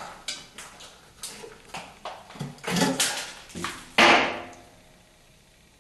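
Metal tools and parts being handled: a string of clinks and knocks, with one loud clank about four seconds in that rings briefly before fading.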